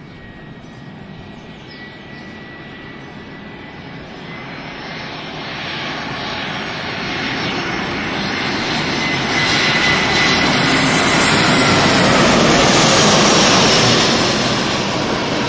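Airbus A320 jet airliner on landing approach flying low overhead: a rushing jet-engine roar with a steady high whine, growing louder over the first ten seconds or so, loudest near the end, then starting to fade as it passes.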